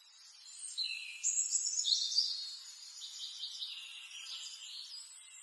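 A songbird singing one long, varied phrase of high notes that step up and down in pitch, loudest a second or two in.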